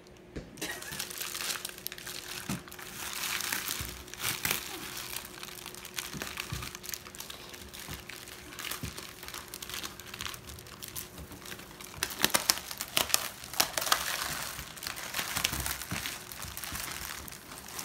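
Plastic cling wrap and a thin plastic bag crinkling and rustling as they are folded and pressed around a large tray, with louder, sharper crackles near the end.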